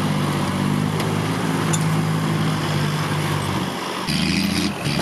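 Dump truck's diesel engine running steadily, its note changing about four seconds in.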